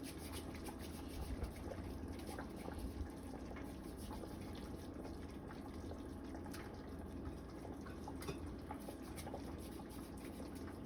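Pot of chicken soup bubbling at the boil, with scattered small plops and drips as pieces of hand-rolled flour dough (spinners) are dropped in.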